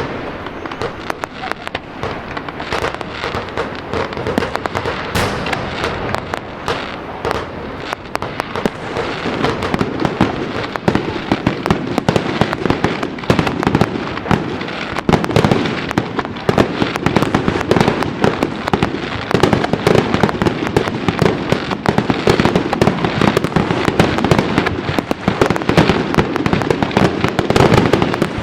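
A fireworks display: a dense, continuous barrage of firework bangs and crackling firecrackers that gets heavier and louder about a third of the way in.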